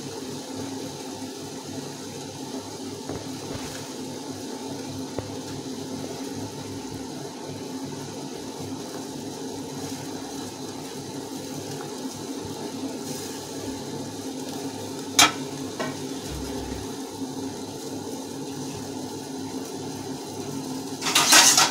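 Sugar syrup boiling steadily in a steel pot on a gas stove at high flame. A single sharp click comes about two-thirds of the way through, and a brief, louder rattle comes near the end.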